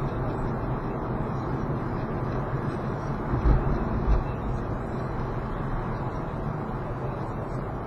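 Road and engine noise of a moving car, heard from inside the cabin: a steady low rumble, with two dull thumps about half a second apart a little after three seconds in.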